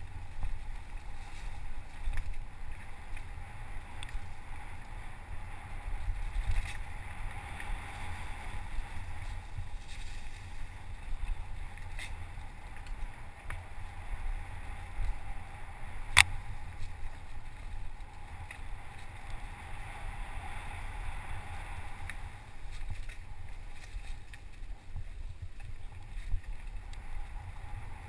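Mountain bike ridden along a dirt forest trail, heard from a helmet camera: wind buffets the microphone over tyre noise and small rattles, with one sharp knock about halfway through. No engine is heard.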